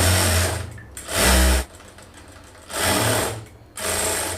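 Jack F4 industrial lockstitch sewing machine running in four short bursts, starting and stopping as the foot pedal is pressed lightly and released.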